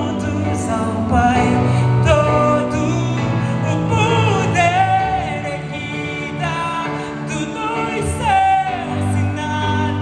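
Live gospel band playing a worship song, with a lead vocal singing a wavering, gliding melody over sustained guitar, bass and keyboard chords.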